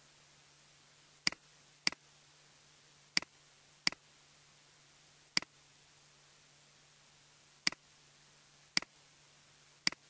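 Computer mouse clicking: eight single sharp clicks, irregularly spaced, over a faint steady hum.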